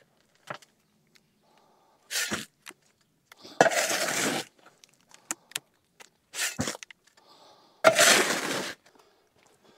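Hand tool striking and breaking out concrete and stony ground at the edge of a slab. There are four sharp hits with smaller clicks between them. The two loudest hits, about three and a half and eight seconds in, are each drawn out to nearly a second.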